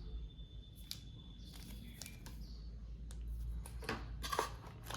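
Faint rustling of packaging with a few light clicks and taps, in scattered short bursts, as items are lifted out of a small phone box.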